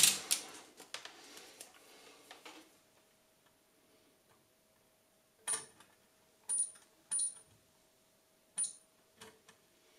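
Several short, sharp clicks, irregularly spaced through the second half, after light handling noise dies away in the first couple of seconds: tools or meter probes tapping on the amplifier's circuit board while the driver transistors are checked for shorts.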